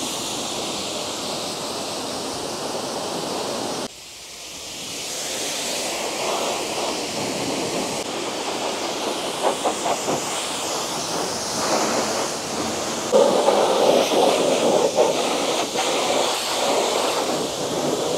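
Pressure-washer lance spraying a mini excavator: a steady hiss of water spray and spatter. It breaks off sharply about four seconds in, builds back up, and is louder and harsher in the last few seconds as the jet hits the machine close by.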